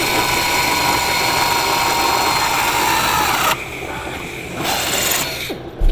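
Pneumatic air drill running and boring through thin aluminium aircraft skin, a steady high whine for about three and a half seconds, then a second shorter burst about a second later. A short thump right at the end.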